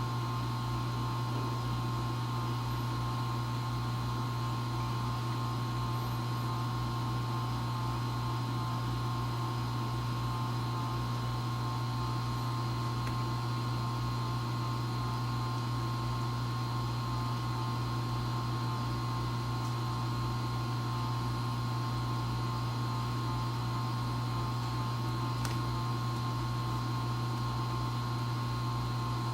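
Vortech MP60 aquarium propeller pump running on constant mode: a steady low hum with a thin high whine above it. This is the noise the owner reports as a problem with the pump.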